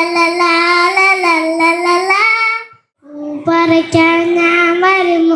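A young child singing a rhyme solo, without accompaniment: long held notes in two phrases, with a short break about halfway through.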